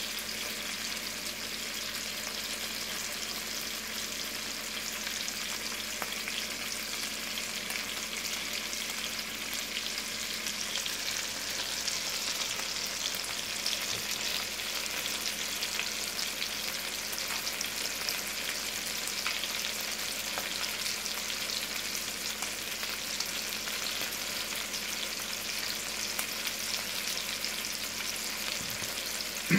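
Chicken breasts frying in olive oil and butter in a pan: a steady sizzle with fine, bubbly crackling.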